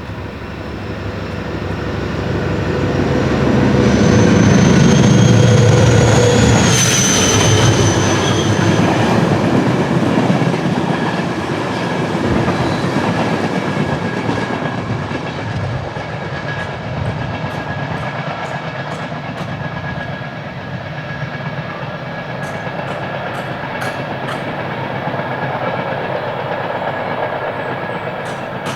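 Class 56 diesel locomotive (Ruston-Paxman V16 engine) running hard as it passes, loudest a few seconds in, with a high whine that drops in pitch as it goes by. Then the freight wagons roll past with clickety-clack and regular clicks of wheels over rail joints.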